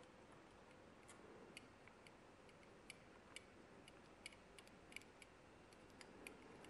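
Near silence, with faint, irregular small ticks from thread being wound around a fly hook held in a vise.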